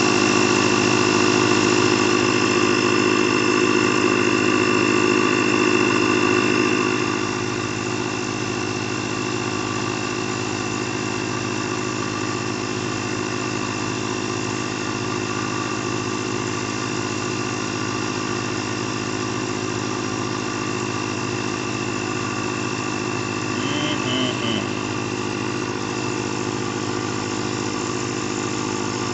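Husky portable digital tire inflator's electric air compressor running steadily as it pumps up a car tire, the pressure rising from about 30 toward its 34 psi set point. About seven seconds in it gets a little quieter and a high whine drops out.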